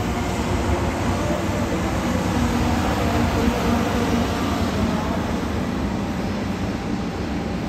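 Doctor Yellow, the 923-series Shinkansen track-inspection train, running along the platform track: the steady rumble of its cars' wheels and running gear going by.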